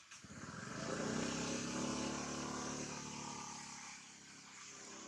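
A motorbike engine passing by: it swells to its loudest about a second in, holds at a steady hum, then fades away over the next few seconds.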